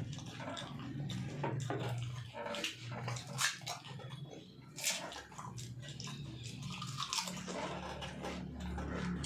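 People eating: chewing and wet mouth smacks, with several sharp clicks and crunches scattered through, over a low steady hum.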